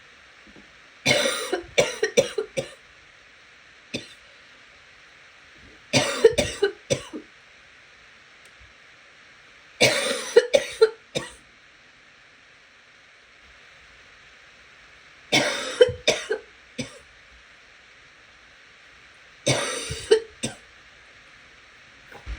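A congested person coughing in five fits, each a quick string of several coughs, with a single cough between the first two fits. A faint steady hiss runs underneath.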